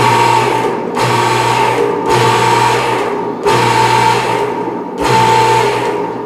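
Electric hydraulic pump of a Rotary car lift running under load as it raises a car, a steady motor hum that cuts out and starts again every second or so.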